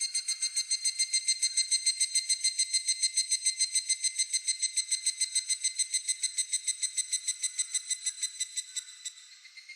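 Higurashi (evening cicada) singing its ringing "kana-kana-kana" call: a rapid train of clear, tone-like pulses, about eight a second, that fades away near the end as a fainter call carries on.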